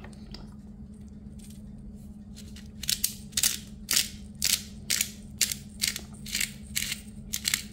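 A hand-twisted McCormick black peppercorn grinder grinding pepper in a quick run of short grinding strokes, about two a second, starting about three seconds in.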